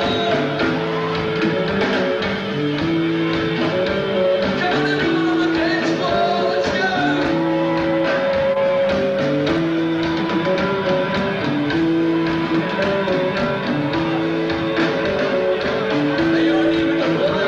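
Live rock band playing loud, with drums and electric guitar over a low riff that repeats about every second and a half, heard from among the crowd through a camcorder's microphone.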